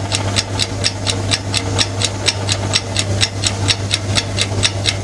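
Countdown timer sound effect: clock-like ticking, about five ticks a second, over a steady low hum.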